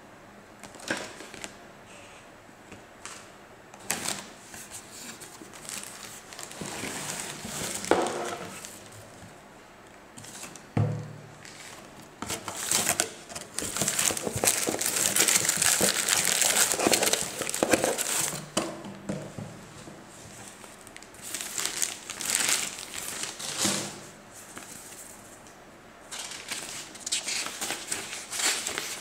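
Packaging being handled: plastic wrapping crinkling and paper and cardboard rustling in irregular handfuls, densest and loudest in the middle, with one dull knock partway through. Near the end, paper pages rustle as a booklet is leafed through.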